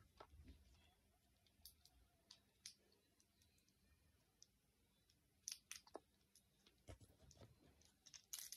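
Near silence broken by faint, scattered clicks and taps of plastic LEGO bricks being handled, with a quicker, louder cluster of clicks near the end.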